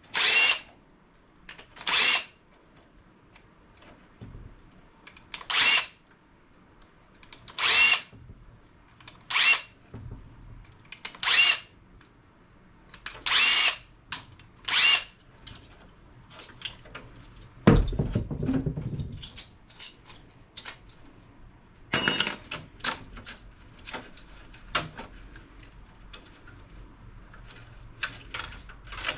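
Electric drill-driver spinning in about eight short bursts of roughly half a second each, in the manner of backing out screws while a PC case is dismantled. A loud clatter about 18 seconds in and a rattle about 22 seconds in, then small clicks of parts being handled.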